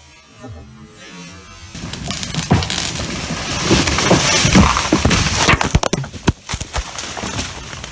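A dead ash tree, about 50 to 60 feet tall, coming down after a chainsaw felling cut. About two seconds in, a rising rush of limbs sweeps through the canopy. After that comes a run of sharp cracks and crashes as the trunk bends in half and branches break and drop.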